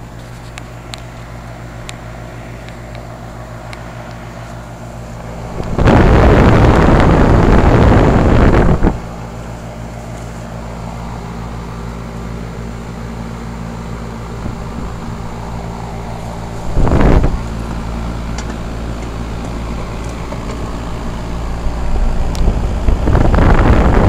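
2008 Carrier 2.5-ton central air-conditioner condensing unit running with a steady hum. Loud rushes of air buffet the microphone for about three seconds starting six seconds in, briefly again later, and once more near the end.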